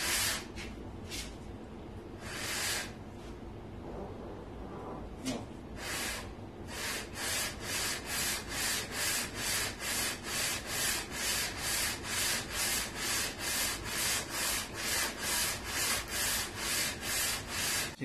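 Cylinder head of a Continental F244 flathead engine being slid back and forth on sandpaper laid on a flat MDF board, sanding its gasket face flat. A few uneven strokes and a short pause at first, then a steady rhythm of about two strokes a second from about six seconds in.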